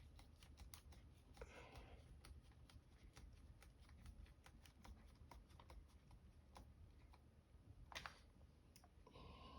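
Faint, quick clicks and light scraping of a small screwdriver driving a keyboard screw into a Dell Latitude E7440 laptop, with a sharper click about eight seconds in.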